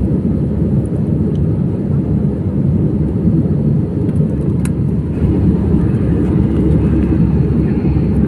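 Airliner cabin noise: a loud, steady low rumble of engines and airflow.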